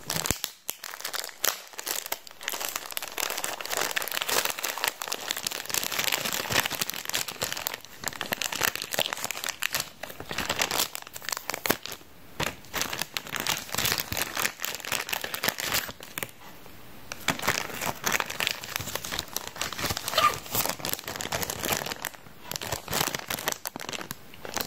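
Thin clear plastic packaging bags crinkling as hands handle and open them: an irregular run of crackles with two brief lulls, about halfway and two-thirds through.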